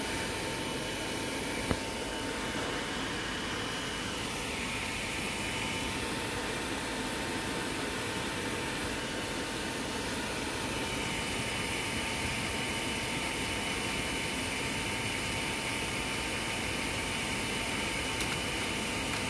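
Small electric cooling fan running steadily, a constant rushing noise with a thin high whine. A single sharp click comes a couple of seconds in.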